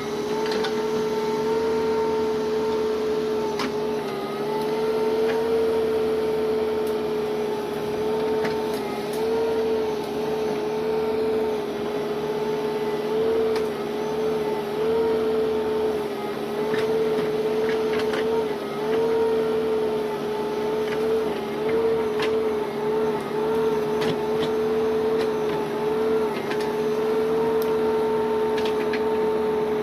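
Steady mechanical whine from a running motor with a slight wobble in pitch, with occasional faint clicks.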